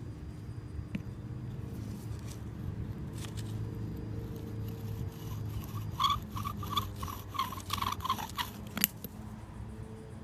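Fired-clay bow-drill spindle grinding and squeaking against a limestone block as the bow is sawed back and forth, in a quick run of squeaky strokes starting about six seconds in, over a steady low hum. The strokes end with a single sharp crack as the ceramic spindle fails after only a few turns.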